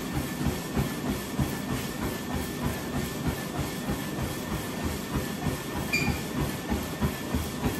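Treadmill with a person jogging on it: even, rapid footfalls on the belt over the running deck, with a thin steady whine from the machine.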